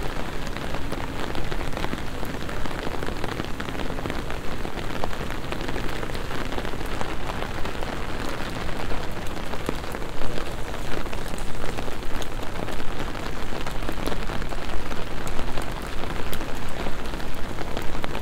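Steady rain falling on wet stone paving, with many small sharp drop hits close by.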